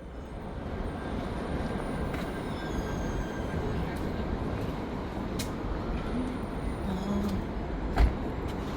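Moving train car heard from inside: a steady low rumble with a few sharp clicks, and one loud thump near the end.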